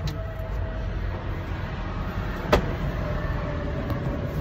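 Steady low rumble of an idling semi-truck engine inside the cab, with a single sharp click about two and a half seconds in.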